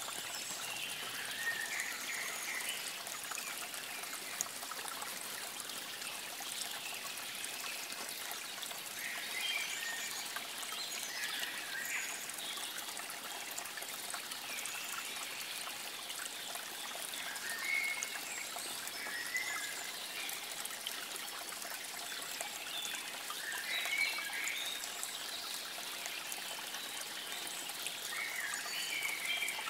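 Water trickling steadily, with small birds singing short phrases every few seconds.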